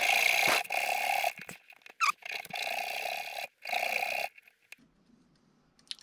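Hacksaw blade cutting through a steel shock eyelet bushing in a RockShox Monarch rear shock's aluminium eye: about six back-and-forth strokes, each ringing with a steady high tone, stopping about four seconds in.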